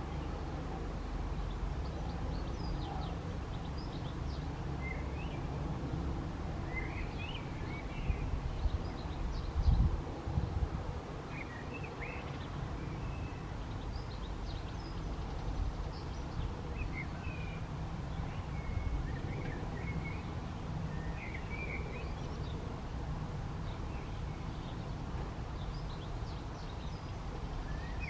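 Birds chirping now and then over a steady low wind rumble on the microphone, which grows louder for a moment about ten seconds in. No siren is sounding.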